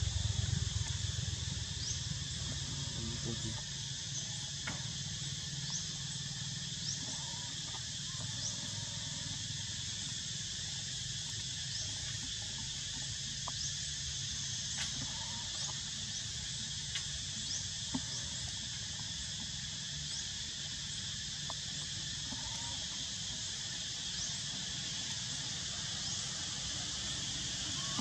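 Steady outdoor insect chorus, a high buzzing hiss with short rising chirps repeating every second or so, over a low rumble.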